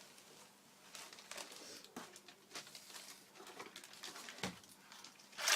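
Packaging wrapping rustling and crinkling in irregular handling noises as it is pulled off a scooter's parts, with a louder crinkle near the end.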